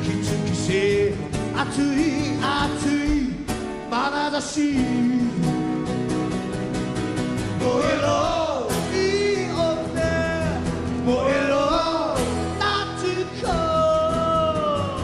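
Live acoustic performance: a male singer sings over strummed acoustic guitars, ending on a long held note that sags slightly in pitch near the end.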